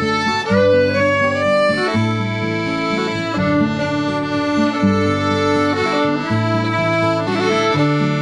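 Instrumental music led by an accordion, playing a melody over held bass notes and chords that change about once a second.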